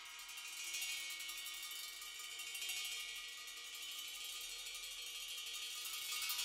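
Chinese cymbals lying flat, played with wooden sticks in a fast, even tremolo of light strokes over a sustained metallic ring, swelling and easing slightly.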